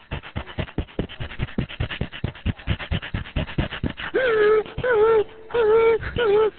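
A man imitating a dog panting rapidly over a telephone line, heard as quick raspy breaths, then breaking into a few short high whines about four seconds in.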